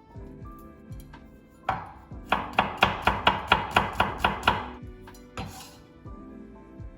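A kitchen knife chopping on a cutting board: a single chop, then a quick run of about ten even strokes, roughly four a second, that stops about two-thirds of the way through, over soft background music.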